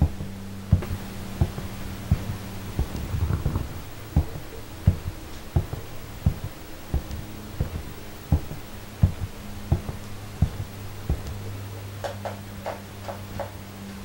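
Footsteps on a carpeted hallway floor: even, soft thumps at a slow walking pace, about three every two seconds, over a steady low hum. The steps stop a few seconds before the end, followed by a few light clicks of paper being handled.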